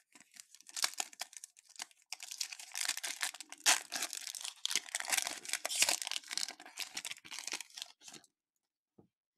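Foil wrapper of a 2022 Topps Chrome Update baseball card pack being torn open and crinkled by hand, a dense crinkling that stops about eight seconds in.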